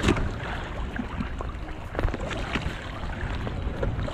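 Wind buffeting the microphone and water washing around a small fishing boat, with scattered sharp knocks and clicks as a fishing net is hauled in by hand.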